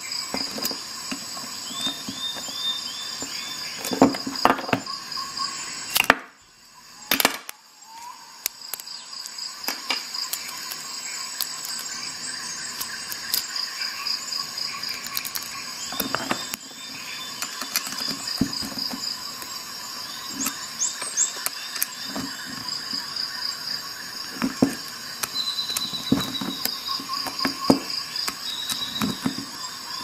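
Light clicks and knocks of a Leatherman multi-tool and its screwdriver bit adapter working screws into a wooden block, over a steady high-pitched whine. The sound briefly drops out about six seconds in.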